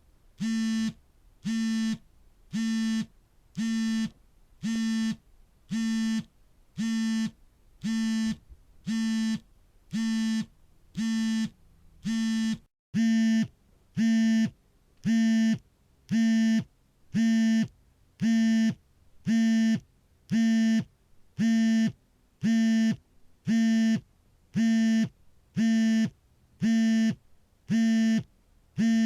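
Mobile phone vibrating for an incoming call in short, evenly spaced buzzes of about half a second, roughly one a second, each with a low hum and a rattly edge. The buzzes get louder about halfway through.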